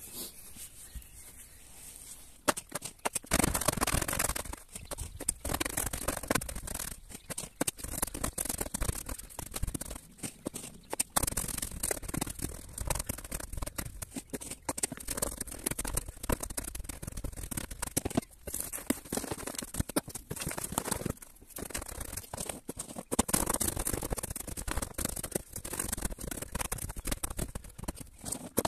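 Chunks of biochar being crushed in a plastic mortar tub by pounding them with a hand tamper: repeated crunching, crackling blows with scraping in between. The pounding starts about three seconds in.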